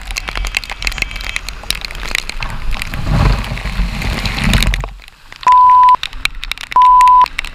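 Heavy rain crackling and pattering on a riding motorcycle's camera, with a louder low rush of traffic noise from about three seconds in. The noise cuts off suddenly near the end, and two steady half-second beeps follow.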